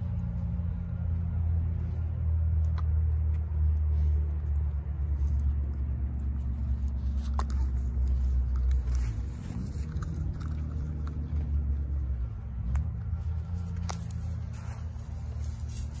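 Low, steady rumble of a motor vehicle engine, loudest for the first half and fading about nine seconds in, with scattered light ticks and rustles from steps in the grass.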